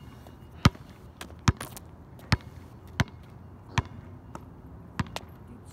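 Basketball being dribbled on an outdoor asphalt court: sharp, regular bounces a little under a second apart, about seven in all.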